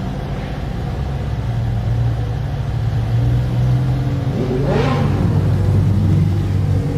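Twin-turbo Mazda RX-7 engine running steadily, with a brief rise and fall in pitch about four and a half seconds in.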